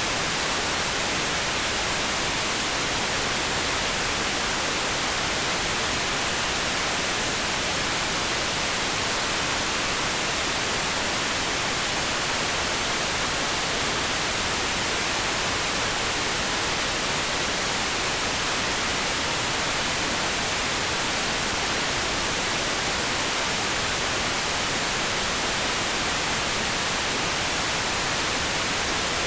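Continuous electronically generated noise: an even, unchanging hiss across the whole range, strongest in the upper frequencies.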